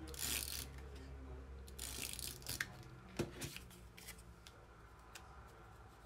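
Cardstock being handled: short dry rustles of card sliding and being pressed down, with a few light taps and clicks in between.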